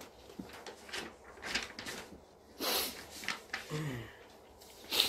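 Faint breathing and small rustling and handling noises in a quiet room, with two louder hissy breaths, about two and a half seconds in and again near the end.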